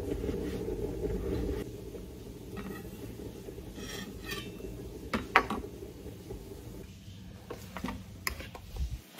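Kitchen knife knocking and scraping on a plastic cutting board as an avocado is cut, with scattered clinks and knocks of kitchen things, the sharpest about five seconds in. A steady low hum stops about a second and a half in.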